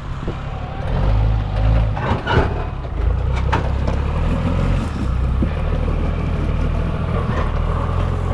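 Four-wheel-drive vehicle's engine running steadily under light load, with a few sharp knocks and clunks over rough ground.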